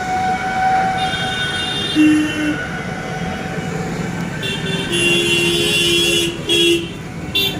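Old Royal Enfield Bullet single-cylinder motorcycle engine running steadily, with vehicle horns honking over it. There is a short toot about two seconds in, a longer honk from about four and a half to nearly seven seconds, and a brief toot near the end; the longer honk and the toots are the loudest sounds.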